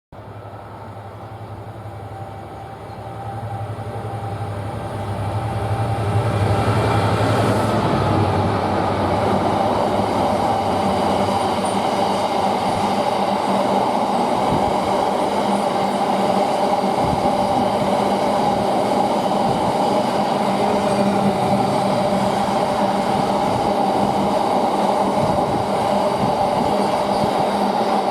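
Diesel-hauled freight train passing: the locomotive's engine drone builds over the first several seconds and has passed by about eight seconds in, then the wagons roll by loud and steady.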